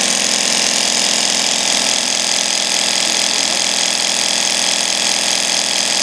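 12-volt tire inflator running steadily, pumping air into a kerosene heater's fuel tank to pressurize it to 1.6 bar.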